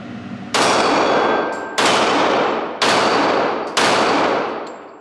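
Glock 22 Gen 5 pistol firing .40 S&W, four single shots about a second apart, each ringing out in the echo of an indoor range. Light metallic clinks fall between the shots.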